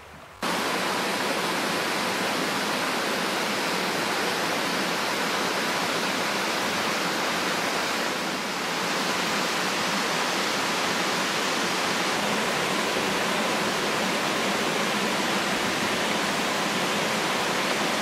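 Waterfall rushing steadily: a dense, even hiss of falling water that cuts in abruptly about half a second in.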